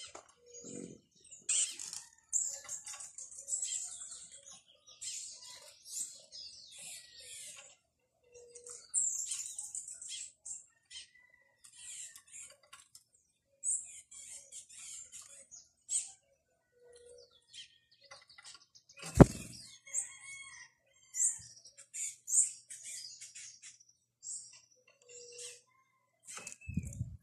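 Crimson-backed tanagers calling at a feeder: a busy run of short, sharp, high-pitched chips and twitters, with a single loud knock about two-thirds of the way through.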